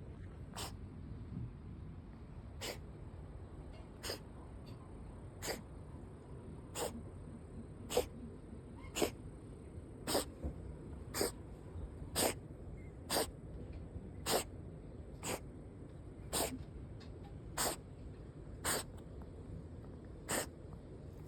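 A cat sneezing over and over, a long fit of short sharp sneezes about one a second, louder in the middle of the run.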